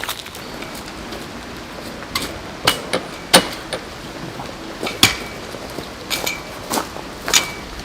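Irregular sharp metallic knocks and clinks, about eight over several seconds, some leaving a short ring.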